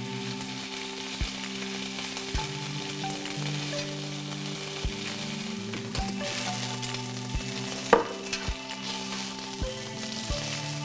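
Leucaena (haole koa) seeds sizzling as they toast in hot oil in a cast-iron skillet. A metal spatula stirs and clicks against the pan about once a second, and sliced onion goes into the oil partway through. A louder knock about eight seconds in.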